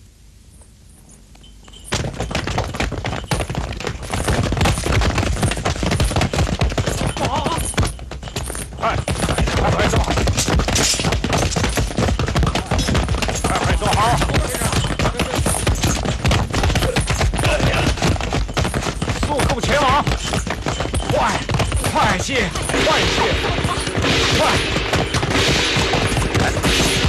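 A dense, rapid clatter of many sharp impacts, starting suddenly about two seconds in and going on without a break, with shouting voices around the middle and a held tone joining near the end.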